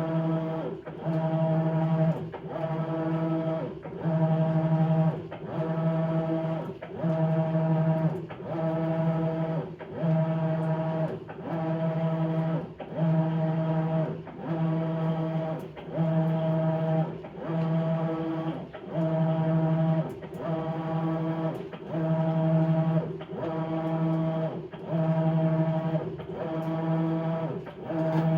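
Maytag Bravos XL top-load washer agitating a load of bedding: the motor hums through short back-and-forth strokes, a little under one a second, with a brief pause at each reversal.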